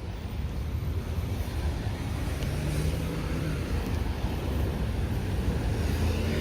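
Road traffic going by: passing cars with a steady low rumble of engines and tyres, and wind on the microphone.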